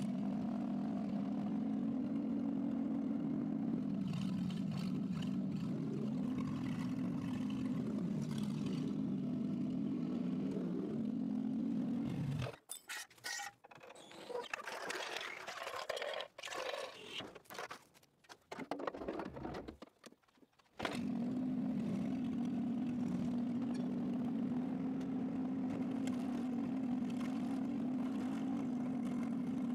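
1966 Citroën DS ID19's four-cylinder engine running at a steady idle. It gives way in the middle for several seconds of softer, irregular clinks and scrapes, then the even idle returns.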